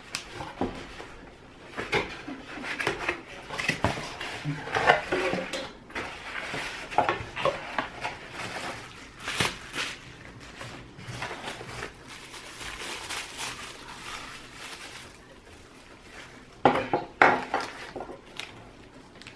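Packaging handled by hand: paper, cardboard and plastic wrap rustling and crinkling, with scattered taps and knocks. A few sharp clicks come near the end.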